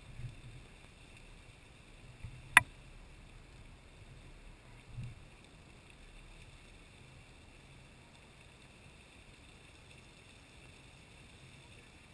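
Faint, steady rushing hiss of the Lady Knox Geyser's erupting water and steam column, with low wind buffeting on the microphone. One sharp click, the loudest sound, comes about two and a half seconds in.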